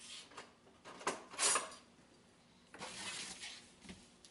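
Tool-handling noises on a workbench: a few short rustles and clatters as a tool is fetched from under the bench and laid on a cardboard template. The loudest is about a second and a half in, and there is a light knock near the end.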